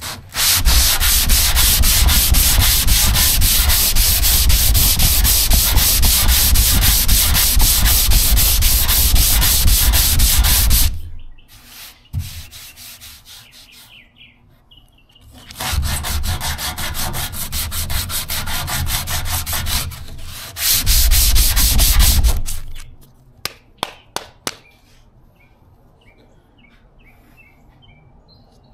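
Power sander with 80-grit paper running against a car's trunk bodywork for about ten seconds, stopping, then running again for about seven more. A few light clicks follow near the end.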